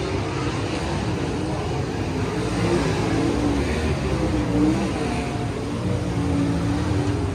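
Race car engines running, a steady mechanical drone whose pitch wavers up and down.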